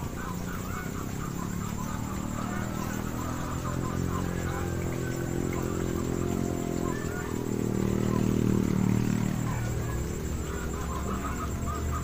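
Repeated croaking calls of white-breasted waterhens, the ruak-ruak lure call used to draw the birds into the snare. They are strongest at the start and again near the end. A low droning hum swells through the middle and fades.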